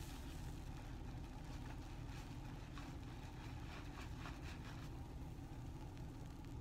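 A suds-soaked sponge squeezed and worked in thick foam, giving faint squelches and crackles of popping bubbles that come in a few short runs through the middle. Under it runs a steady low hum.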